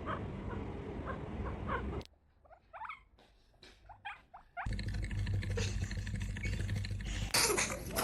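Hamster squeaking in a string of short, rising chirps over a low rumble of background noise that drops out about two seconds in and comes back louder about halfway through.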